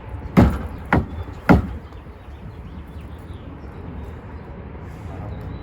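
Three sharp knocks, the second and third about half a second apart, over a steady low hum.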